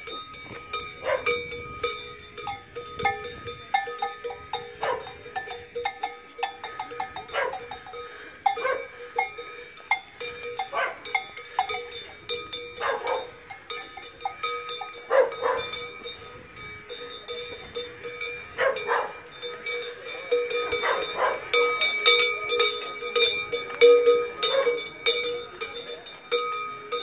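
Large cowbells worn by costumed devils, clanging unevenly: many irregular strikes over steady ringing tones.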